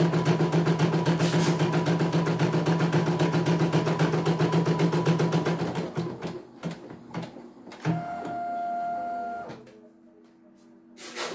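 CNY E900 computerised embroidery machine stitching at a fast, even rhythm, then slowing to a few separate needle strokes and stopping about six seconds in. About two seconds later comes a steady whine of about a second and a half as the embroidery arm runs the hoop out to the front, and a short click near the end.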